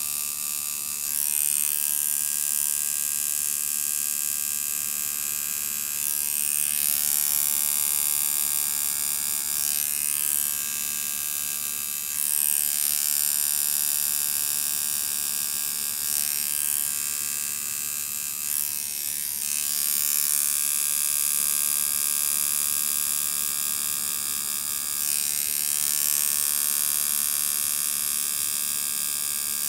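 Coil tattoo machine buzzing steadily as it drives the needles into the skin, its level swelling and easing every few seconds.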